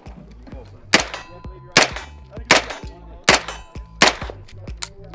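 Heckler & Koch SP5, a 9mm roller-delayed semi-automatic pistol, firing five single shots in steady succession, about one every three-quarters of a second.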